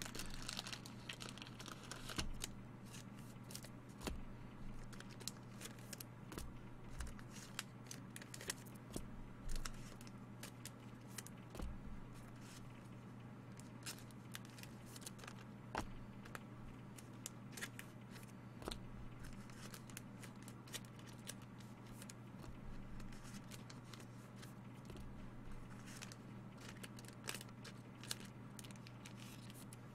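Faint scattered clicks and light rustling of small handling noises, over a steady low electrical hum.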